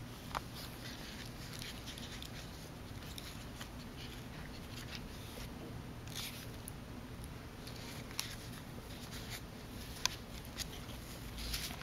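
Faint, scattered rustles and soft clicks of a Yorkshire terrier puppy mouthing and nudging a fabric chew toy on a plush dog bed, over a steady low hum.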